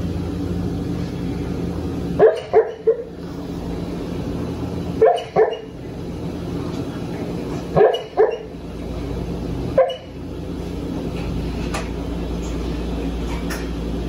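Sleeping dog giving soft woofs in its sleep, in clusters of two or three about every two to three seconds, over a steady low hum.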